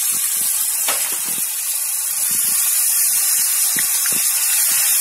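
Garlic paste frying in hot oil in a wok: a steady sizzle with scattered crackles.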